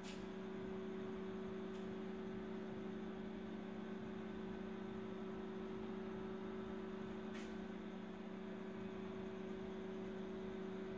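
Steady low electrical hum, with a few faint ticks.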